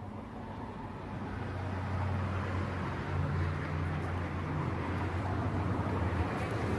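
Low, steady rumble of a motor vehicle engine running, growing louder over the first two or three seconds and then holding.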